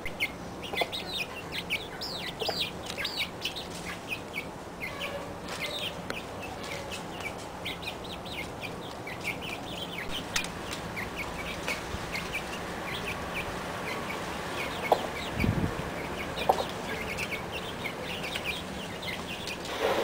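Backyard chickens clucking, with a steady stream of short, high, falling chirps several times a second. A low thump and a couple of sharp knocks come about three-quarters of the way through.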